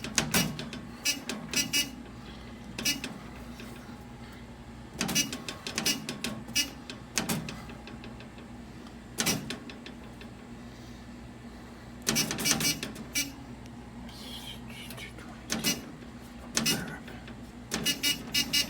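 Irregular handling noises: sharp clicks and short clattering runs every second or few, over a faint steady hum.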